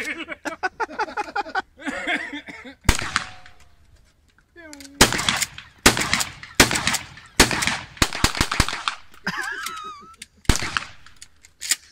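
Gunshots: a single shot about three seconds in, then a quick string of about seven shots over some four seconds, and two more shots near the end.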